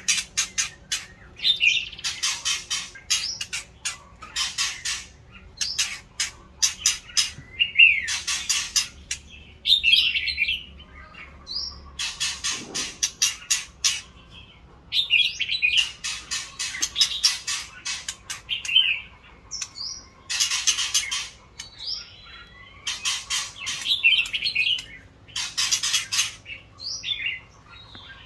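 White-rumped shama singing: repeated bursts of fast, dry clicking rattles traded with short whistled notes that slide in pitch.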